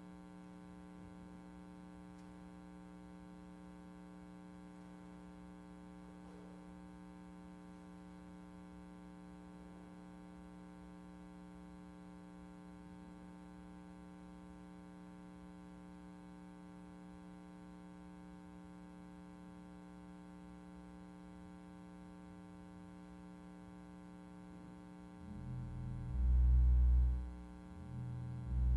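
Pipe organ holding a soft, steady chord; about 25 seconds in, loud deep pedal notes enter, twice, the second held on.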